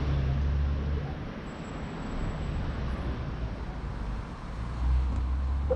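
Road traffic along a city street: a motor vehicle's engine rumbles low, strongest at the start and again near the end, over a steady wash of street noise.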